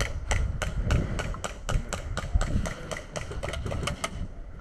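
Footsteps at a run: a regular run of sharp taps, about four or five a second, over a low rumble, stopping about four seconds in.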